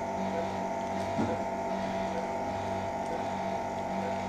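Steady electrical hum of operating-room equipment, with a lower drone that swells and fades about once a second and a faint short beep repeating a little under once a second.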